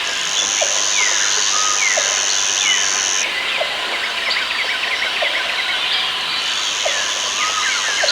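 Rainforest ambience: many birds chirping in short, quick calls over a dense background hiss. A high, steady buzz starts just after the beginning, stops after about three seconds, and comes back near the end.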